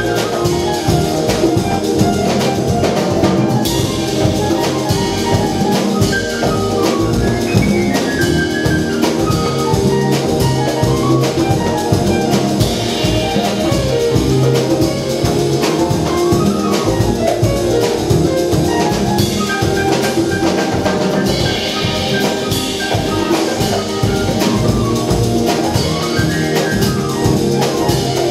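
Live jazz band playing: piano, double bass, drum kit and congas, with quick melodic runs rising and falling over a busy drum groove.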